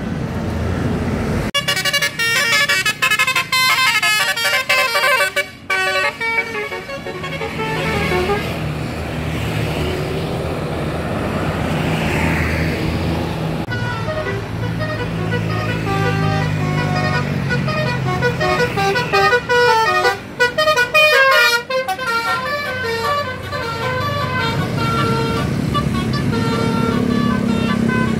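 Bus 'telolet' musical air horns (Basuri type) play quick melodies of stepped notes in two runs, separated by a few seconds of the bus's diesel engine running.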